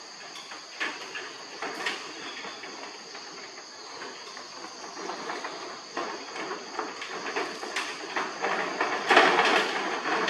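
Insects droning steadily in a high, even two-pitch buzz, with scattered light clicks and rustles and a louder stretch of rough rustling and scraping about nine seconds in.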